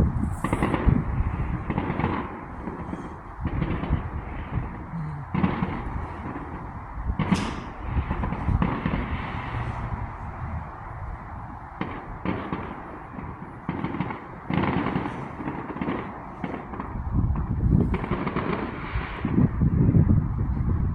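Fireworks going off in a dense barrage: overlapping booms and bangs at irregular intervals, several a second, loudest near the start and again near the end.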